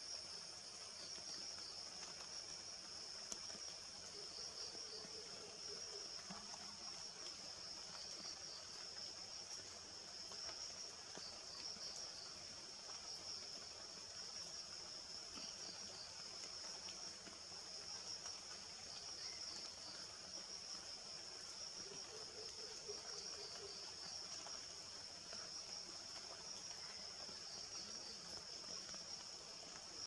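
A steady, high-pitched chorus of insects trilling without a break, its sound finely pulsing.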